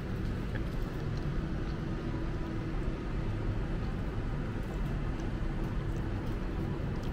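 Steady low rumble of distant city traffic, with a faint steady hum.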